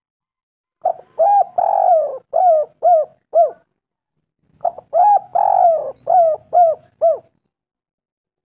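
Spotted dove (tekukur) cooing: two phrases of several hollow, arched coos, each with one longer drawn-out note in the middle and quick short coos after it.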